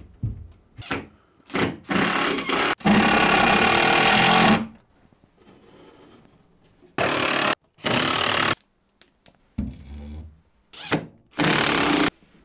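Cordless drill-driver running in about five short bursts, the longest nearly two seconds, driving screws to fix the front panel onto a plywood galley cabinet, with knocks from handling the wood in between.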